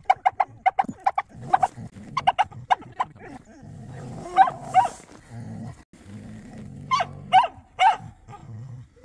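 Samoyed barking in short, high-pitched barks: a quick string of them at the start, then scattered single barks and pairs.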